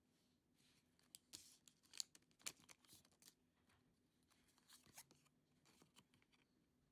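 Faint rustle and clicks of a stack of Pokémon trading cards being handled by hand: card stock sliding and snapping against card stock, with most of the sharper clicks in the first half.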